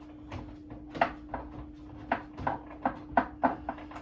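Irregular light clicks and knocks, roughly three a second, as a mounting bolt is worked into an over-the-range microwave, over a steady hum.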